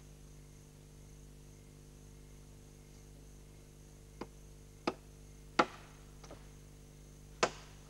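An axe chopping into a fallen log: five sharp blows spaced irregularly through the second half, the loudest a little past the middle.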